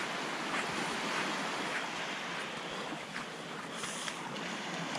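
Small surf waves breaking and washing over sand at the water's edge: a steady hiss of moving water.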